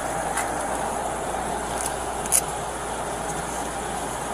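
Steady running noise of a motor vehicle, with a few sharp clicks, the loudest about two and a half seconds in.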